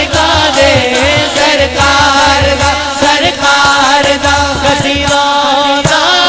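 Male voice singing a Punjabi naat through a microphone in long, drawn-out melismatic lines, joined by a second singer, over a steady drone and a low pulsing beat.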